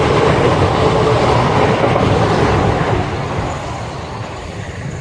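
Passenger train passing close by on the track, a loud rush of rail and wheel noise that begins to fade about three seconds in as the train moves away.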